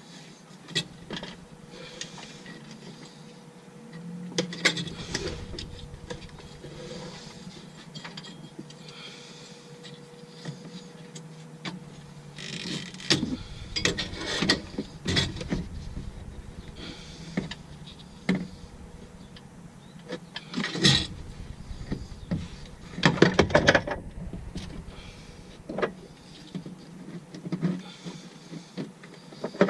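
Scattered clicks, knocks and handling noises of hands-on mechanical work, with denser clusters about halfway through and again later, and a faint steady hum over the first third.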